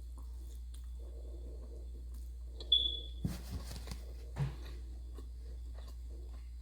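Close-up chewing of food, with a few sharp crunchy bites about halfway through. A brief high beep comes just before the crunches, and a steady low hum runs underneath.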